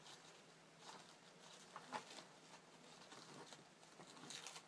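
Faint rustling and crinkling of tissue-paper masking and tape being peeled slowly off a spray-painted scale model tank, with a few soft clicks and crackles, the sharpest about two seconds in.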